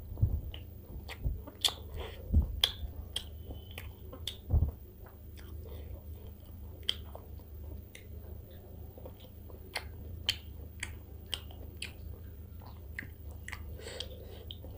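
Close-miked chewing of a mouthful of rice and fish curry eaten by hand, with many small wet mouth clicks and lip smacks throughout. A few low thumps in the first five seconds are the loudest sounds, over a steady low hum.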